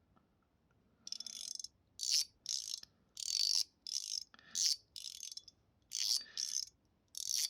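Stainless steel mechanical fidget slider (Wanwu Chen Yu Guardian, dense version) slid back and forth, its spring-and-ball detents giving about eleven short, crisp, clicky strokes, starting about a second in. Its tuning is quite crispy.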